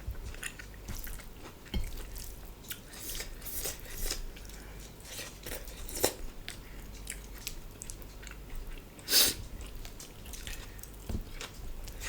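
Close-miked mouth sounds of someone eating rice, dal and chicken curry: irregular wet chewing smacks and clicks over a low hum, the loudest smack about nine seconds in.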